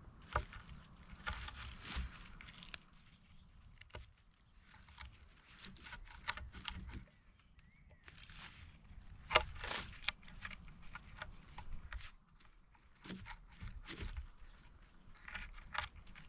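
Small pocket knife carving a divot into a dry dead-oak bearing block: faint, irregular scraping and scratching with scattered ticks, and one sharper click about nine seconds in.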